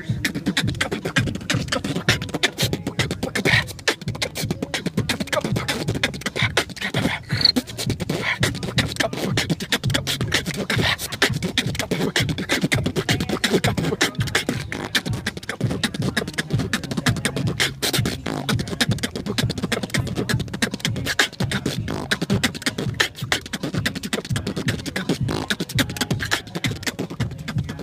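Live human beatboxing: a fast, unbroken run of vocal kicks, snares and clicks with no pause.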